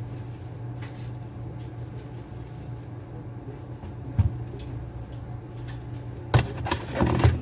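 Handling of a metal BT30 facemill tool holder: a single knock about four seconds in, then a short clatter of knocks near the end, over a steady low hum.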